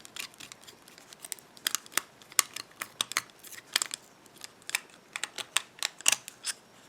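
Small metallic clicks and ticks at an irregular pace, several a second, as a small screwdriver turns the screw into a spring-loaded padlock's body.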